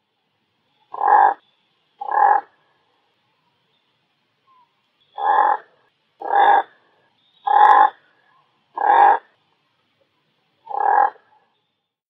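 Razorbill calling: seven short calls, two about a second apart, then five more spread over the next six seconds.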